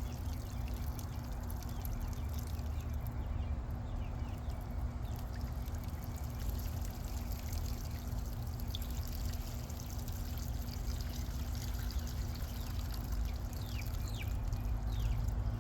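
Steady running, trickling water at a pond, with a low rumble underneath.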